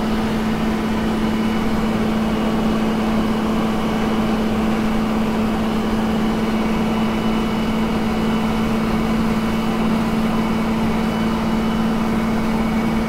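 Toyota Land Cruiser 60 Series driving along a highway, heard from inside the cabin: a steady engine drone with a constant hum over road noise.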